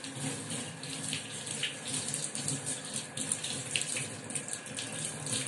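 Tap water running into a stainless steel sink, splashing over hands being washed under the stream.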